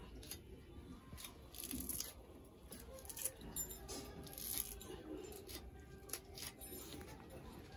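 Faint, scattered clicks and rustles of vegetable stalks and greens being cut and handled.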